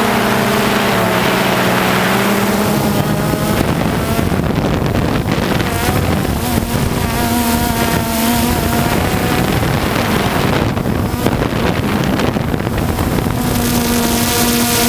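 DJI Phantom 2 quadcopter's motors and propellers buzzing in flight, a whine of several tones that drift up and down as the motors change speed, with wind rushing over the microphone.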